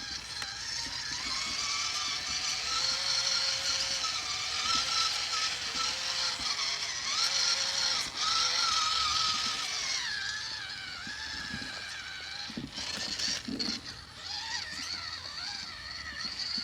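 Whine of a WPL C-44 RC truck's small electric motor and gears as it is driven through mud, the pitch rising and falling with the throttle. It eases off and gets quieter about two-thirds of the way in.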